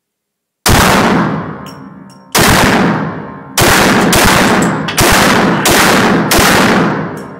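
Desert Eagle .44 Magnum pistol fired about seven times, the first shot about half a second in and then a gap before faster shots roughly every two-thirds of a second. Each very loud shot is followed by a long echo off the walls of the indoor range.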